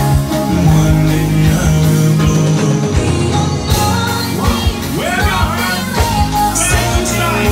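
Loud live music from a stage sound system: a vocalist singing into a microphone over a backing track with a steady bass beat.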